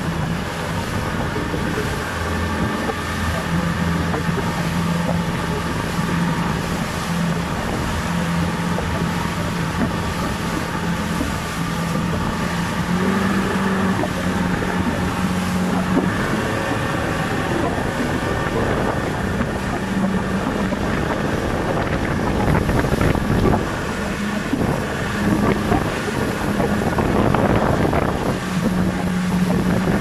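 Outboard motor running under way, a steady drone whose pitch steps up a little about thirteen seconds in, over the rush of the wake and wind buffeting the microphone.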